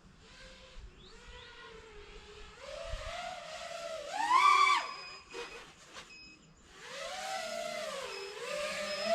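Nazgul Evoque F6D FPV quadcopter's motors and propellers whining in flight, the pitch rising and falling with the throttle. The whine climbs sharply to a loud peak about four seconds in, drops away almost to nothing for a moment, then comes back and swings up and down again.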